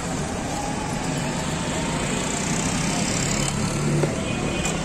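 Steady street traffic noise, with a motor vehicle's engine running close by and growing a little louder about three and a half seconds in. Two light clicks near the end.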